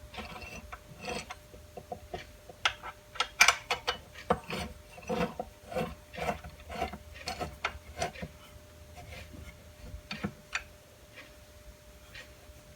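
Irregular clicks, taps and scrapes of metal parts being handled and adjusted on a benchtop belt sander's tilting belt table, thinning out about ten seconds in.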